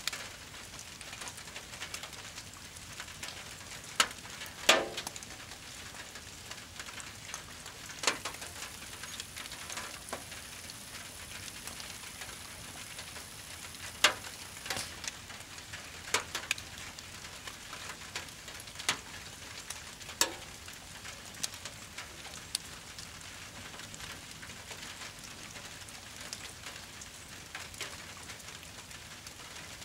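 Burning brush pile crackling, with sharp pops every few seconds over a steady hiss of rain. The loudest pops come around four to five seconds in and again near fourteen seconds.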